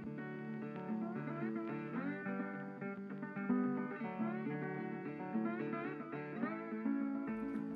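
Background music of plucked guitar playing a melody, with some notes sliding up in pitch.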